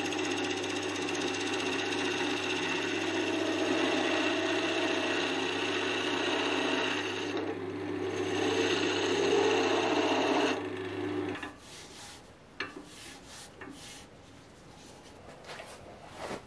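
Wood lathe running while a turning chisel cuts a spinning wood blank: a steady motor hum under a scraping, hissing cut. About ten and a half seconds in the cutting stops and the hum cuts off shortly after, followed by a few light clicks and knocks.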